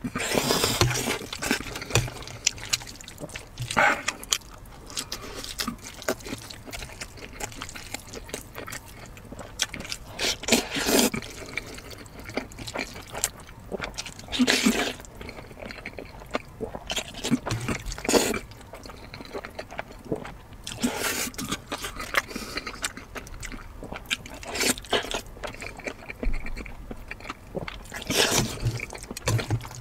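A person slurping long noodles, with a loud wet slurp every few seconds and quieter chewing and mouth sounds between.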